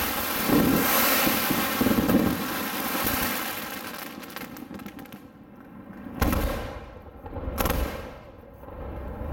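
Fireworks: a dense shower of sparks hissing and crackling for the first few seconds, then fading, followed by two loud bangs about six and seven and a half seconds in.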